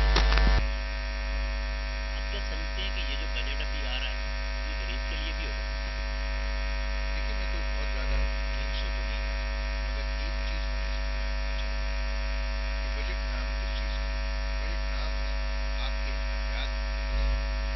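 Steady electrical mains hum and buzz, with faint, indistinct voices beneath it. Two brief low bumps come about eight seconds in and near the end.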